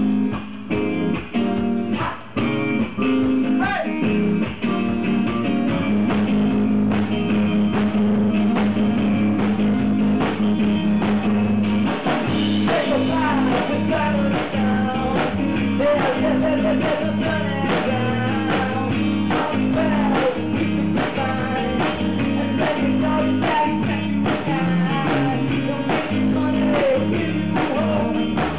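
Rock band playing live in rehearsal on a Gretsch drum kit and electric guitar. The first few seconds are stop-start hits with short gaps, then the band settles into steady, continuous playing.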